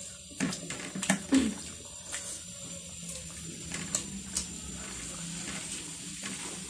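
Close, wet chewing and mouth sounds of people eating, with a few short clicks in the first couple of seconds.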